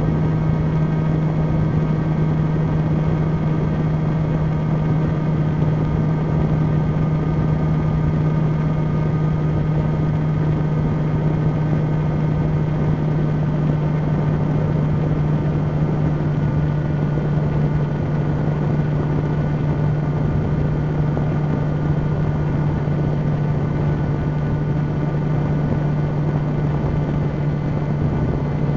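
A camera drone's motors and propellers humming at one steady pitch, heard from the camera on board, over a rushing noise.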